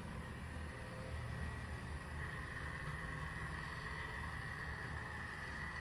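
Battery-powered toy train running on plastic track: its small electric motor whirs with a steady high whine over a low rumble from the wheels on the track.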